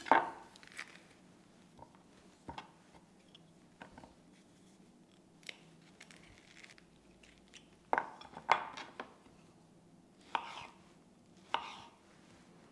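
Kitchen knife cutting fresh peaches on a plastic cutting board: irregular sharp knocks of the blade meeting the board, with a cluster of louder ones in the last third.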